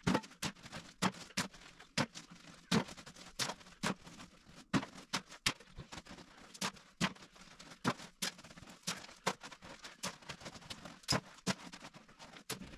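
Broken floor rubble tossed by hand into a steel wheelbarrow, piece after piece: sharp, irregular clunks and clatters, roughly two a second, some louder than others.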